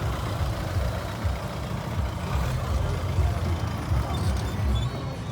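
A car engine running at low revs nearby, a steady low rumble.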